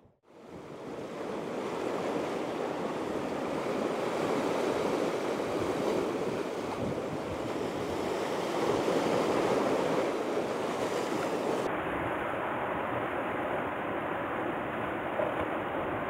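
Heavy surf washing and breaking over a rocky shore in a rising swell, a steady rushing with some wind on the microphone. The sound turns duller about twelve seconds in.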